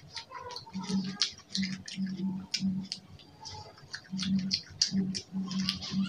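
Close-miked chewing of roasted quail meat: wet lip-smacking and crisp mouth clicks with a chewing rhythm of about two chews a second, pausing briefly midway.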